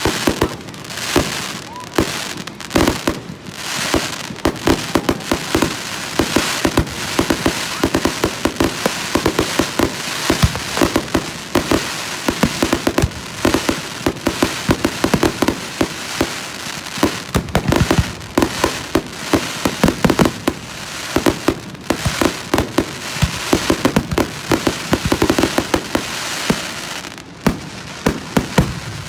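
Fireworks display: a rapid, unbroken run of bangs from bursting shells, several a second, over continuous crackling.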